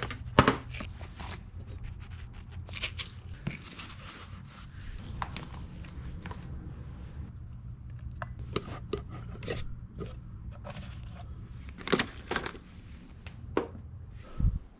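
Plastic Easter eggs and household objects being handled and set down: scattered light clicks, taps and scrapes, with a steady low hum underneath.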